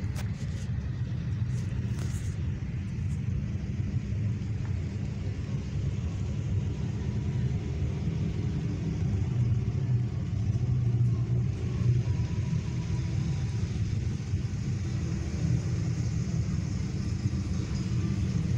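A slow procession of cars driving past close by: a steady low engine rumble.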